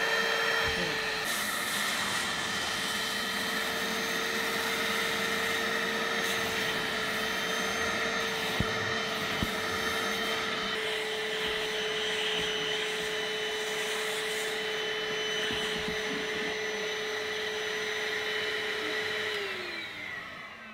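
Vacuum cleaner running steadily with a high motor whine while a fabric car seat is vacuumed, with a couple of light knocks about halfway. Near the end the motor is switched off and its pitch falls as it spins down.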